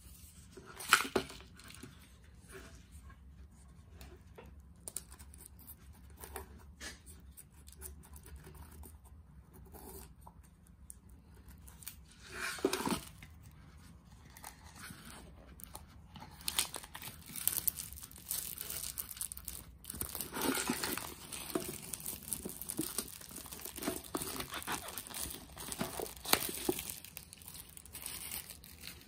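Clear plastic shrink-wrap being torn and peeled off an instant noodle cup, crinkling and crackling in uneven bursts. There are sharp loud bursts about a second in and near the middle, and the crinkling is busiest in the second half as the film comes away.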